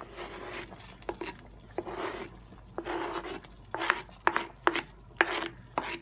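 A spatula scraping crumbled fresh cheese across a wooden cutting board and into a pot of boiling broth. Repeated short scrapes, with sharp taps of the utensil against the board that come thicker in the second half.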